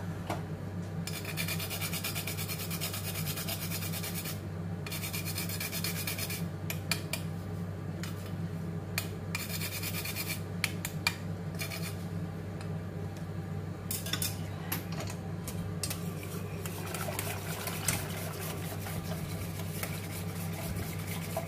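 Food being grated on a handheld metal rasp grater, in several bursts of quick scraping strokes, over a steady low hum.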